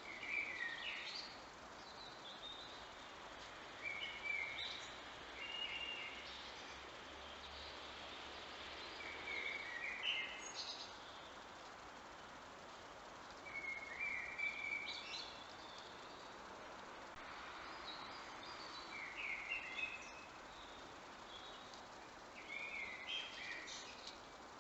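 A songbird singing short warbled phrases, about seven of them a few seconds apart, faint over a steady background hiss.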